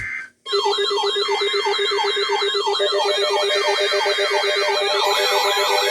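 Loud electronic emergency-alert siren tones start about half a second in: several tones wail up and down together, about two sweeps a second, over a steady pulsing low tone. More tones join about three and five seconds in. This is the attention signal for a severe thunderstorm warning.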